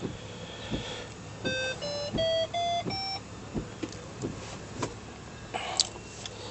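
Five short electronic beeps climbing step by step in pitch, about a second and a half in, from the Digitone hand-control system counting up to its fifth tone, the one that selects the windshield wipers and washers. Faint regular clicks sound behind them.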